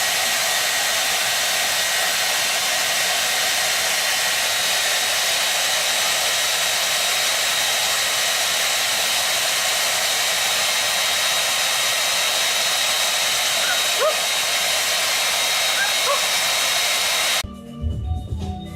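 Steady, loud rushing hiss of air or water, with a faint whine held under it and two brief faint rising squeaks about 14 and 16 seconds in. It cuts off abruptly near the end, and music starts.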